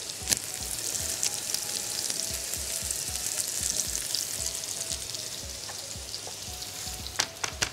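Chicken breasts frying in a little oil in a nonstick frying pan: a steady sizzling hiss with crackle, and a few sharp clicks near the end.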